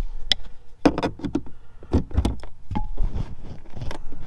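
Irregular short plastic clicks and knocks as a push-pin trim retainer is worked out of a van's lower dash trim panel by hand.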